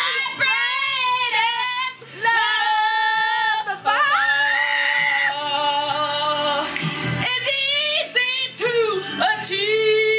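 A voice singing long wordless notes that slide up and down between held pitches, with one high note held from about four to five seconds in, over music.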